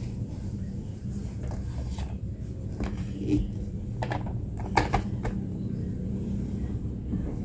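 A steady low hum with a handful of light clicks and knocks in the middle, typical of small objects being handled in a room.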